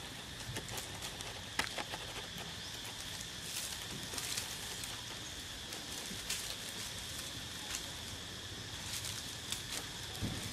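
Scattered crackles and rustles of dry leaves and dead coconut palm fronds as young macaques scramble through them, over a steady outdoor hiss.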